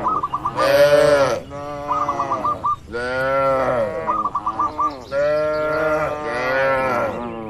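Cattle mooing, one call after another with several overlapping. A short run of high chirps recurs about every two seconds.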